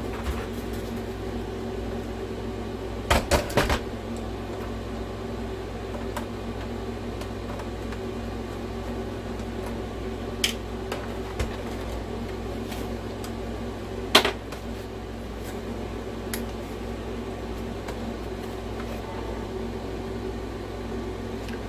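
Steady machine hum, with a few sharp clicks and knocks of plastic parts as an original PlayStation 4's casing is worked apart: a quick cluster about three seconds in, then single clicks later, the loudest one about two-thirds of the way through.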